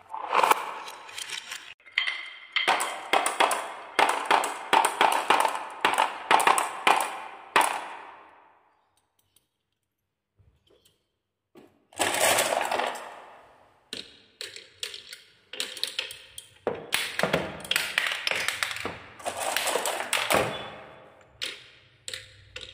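Balls rolling and clattering through a wooden marble run, a rapid jumble of clicks and knocks as they hit the track and each other. The clatter stops for about three seconds near the middle, then starts again and runs until just before the end.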